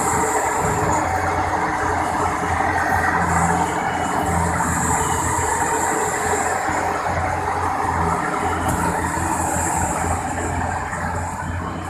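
Heavy diesel machinery running steadily, a loud continuous drone with a low hum, easing slightly near the end.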